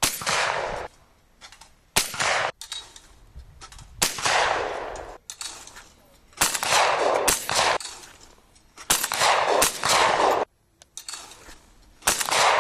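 Shotgun shots at a clay shooting range, fired one after another roughly every two seconds. Each shot is a sharp report with a tail of about a second as it echoes off the field.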